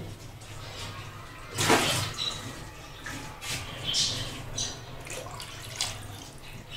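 Pot of spiced water for chicken pilau heating on the stove, hissing and bubbling in irregular spurts, loudest about two seconds in, over a steady low hum.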